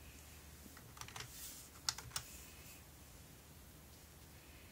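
A few short, sharp clicks, like keys being pressed: a small cluster about a second in, then two crisp clicks about two seconds in, over faint room noise.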